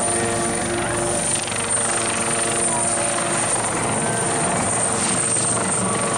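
Kawasaki OH-1 observation helicopter flying a low pass: a steady, rapid rotor chop under a high, constant turbine whine from its twin turboshaft engines.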